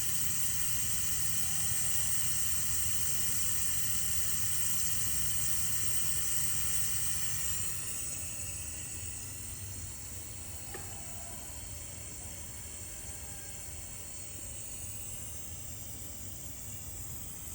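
Refrigerant gas hissing out of a refrigerator's sealed system through an opened valve or cut line, strong and steady for about seven seconds, then dropping to a weaker hiss as the pressure falls. A faint click partway through.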